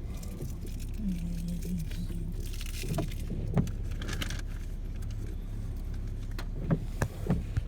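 Car cabin noise while driving: a steady low rumble of engine and tyres, with a few sharp clicks and knocks scattered through it.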